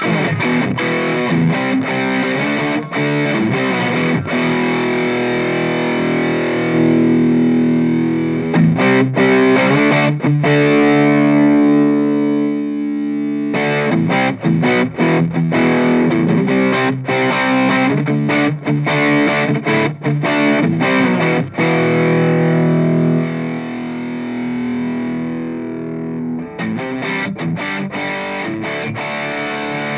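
Electric guitar played with distortion through an Orange Crush 35 LDX combo amp, picking riffs and chords. About ten seconds in, a chord is left to ring out before the playing picks up again.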